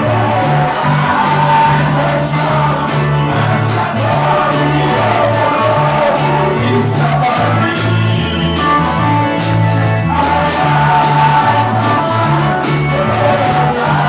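Band music with singing, likely a church worship song: a bass line stepping between low notes under drums, guitar and voices, playing steadily without pause.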